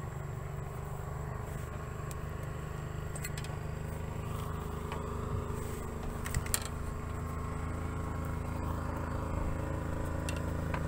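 A small boat engine running steadily at low revs, a low even hum, with a few faint sharp clicks about three to six and a half seconds in.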